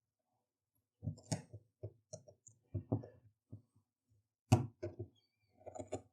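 Irregular clicks and knocks of hand tools bending over the retaining tabs that hold a new Bosch/Siemens dishwasher door lock, with the sharpest knock about four and a half seconds in.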